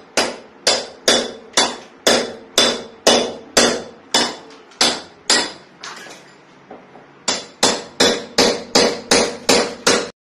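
Steel hammer striking a chisel to chip the concrete wall around a breaker box, each blow with a short metallic ring. The blows come steadily about two a second, pause briefly past the middle, then resume in a quicker run that stops just before the end.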